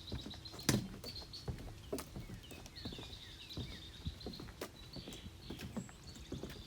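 Birds calling: a steady high trill with a few short falling chirps about two seconds in, over footsteps on a trail.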